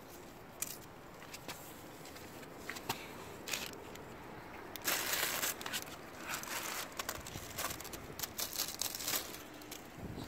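Chili pepper plant foliage handled by hand: crinkling rustle of leaves and stems with scattered snaps, densest about halfway through and crackling on for a few seconds after.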